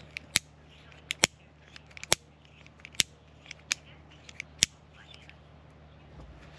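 Metal carabiner gate being opened and let snap shut over and over, about nine sharp metallic clicks in the first five seconds. The gate has just been cleaned of grit.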